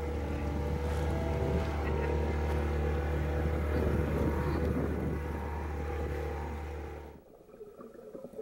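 A small boat's motor running steadily under way, a deep even rumble with the rush of wind and water, with sustained music notes laid over it. It cuts off abruptly about seven seconds in.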